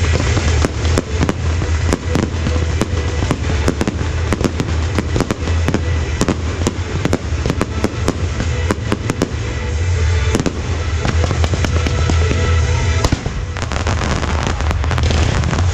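Fireworks going off in rapid succession: a dense run of sharp cracks and bangs from aerial shells and gold sparkling comets, over music with a strong steady bass.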